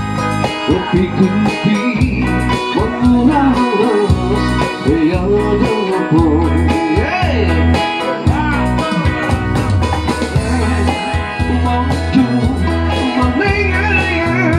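Live band music: electric guitar and electronic keyboard playing over a steady bass, with a man singing into an amplified microphone near the end.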